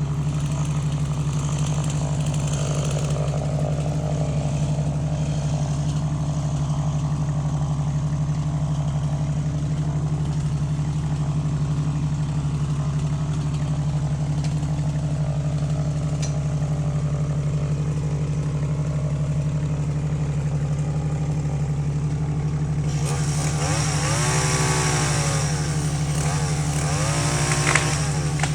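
Jeep Wrangler's engine idling steadily with a low hum. From about 23 seconds in, a higher sound sweeps up and down in pitch again and again over it.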